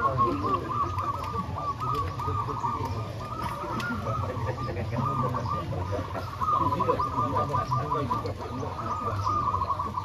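Many caged zebra doves (perkutut) cooing at once, a dense chorus of short repeated coos all near the same pitch, with a steady low hum underneath.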